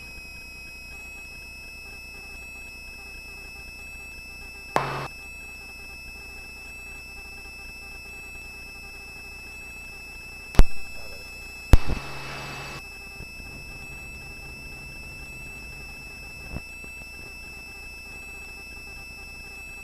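Helicopter turbine whine, a steady high tone that settles after a brief rise at the start, over a low hum. A few sharp clicks and short bursts of noise come around the middle, the loudest two close together a little past halfway.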